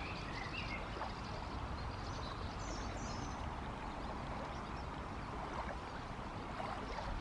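The Loire's current rushing steadily past a stony bank. A few faint, short high chirps come through about two and a half to three seconds in.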